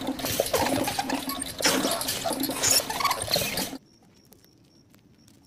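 Hamster wheel spinning and clattering as a round hamster tumbles out onto its bedding, with rustling, knocks and short squeaks. It cuts off suddenly a little under four seconds in, leaving only faint ticks and high chirps.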